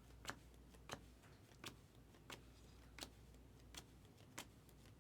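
Trading cards being flipped through one by one, a faint short click with each card, about one every two-thirds of a second, over a low steady hum.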